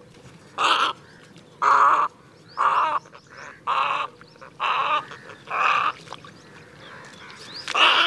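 Western reef heron calling: seven short, rough calls about a second apart, with a longer pause before the last one.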